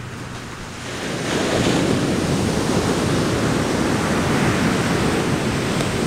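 Ocean surf breaking and washing up the beach: a steady rush that swells louder about a second in, with wind on the microphone.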